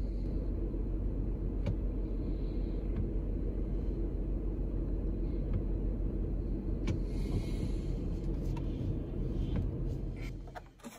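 2010 Dodge Grand Caravan minivan idling, heard as a steady low rumble inside the cabin with a few faint clicks. It cuts off near the end.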